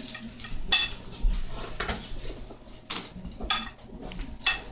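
A spoon stirring a hot stuffing-topped chicken casserole in a ceramic baking dish, scraping through the crumbs and knocking against the dish. Several sharper scrapes stand out: about a second in, and twice near the end.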